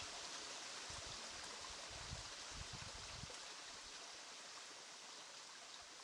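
Faint, steady rushing of water, with a few soft low knocks about two to three seconds in.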